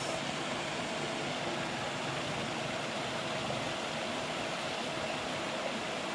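Pond aerators running: a steady wash of churned water with a faint steady hum under it.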